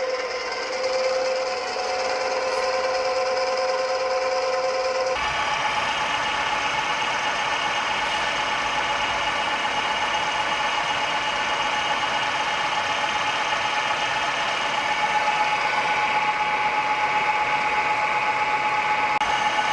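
RABOMA 12 UH 1600 radial drilling machine running, a steady mechanical whine of several held tones. About five seconds in the sound changes abruptly to a higher whine, which then holds steady.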